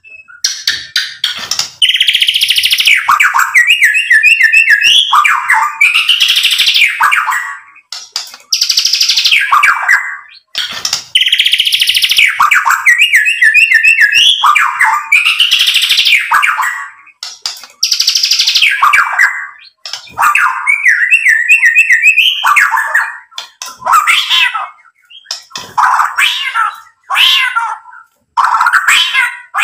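White-rumped shama singing loud, varied song in phrases several seconds long, broken by short pauses, with rapid runs of repeated notes among the louder phrases.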